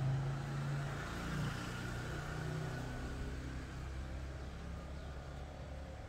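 A low engine hum, steady with its pitch shifting a little.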